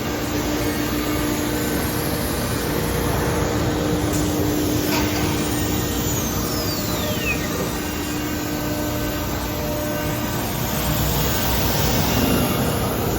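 A 5' x 10' CNC router running with a steady machine roar and hum. About five seconds in there is a click, then a whine that falls in pitch over a couple of seconds.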